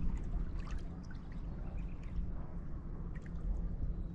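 Shallow tidal water lapping and trickling in small ticks and splashes, over a steady low rumble of wind on the microphone.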